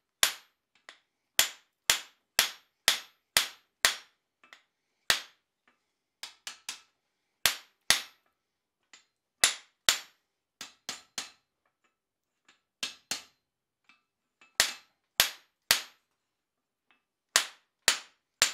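Hand hammer striking a steel monkey tool fitted over a hot bar's tenon on the anvil, driving it down to square up the tenon's shoulder. Sharp, ringing steel-on-steel blows in short runs, about two a second, with brief pauses between runs.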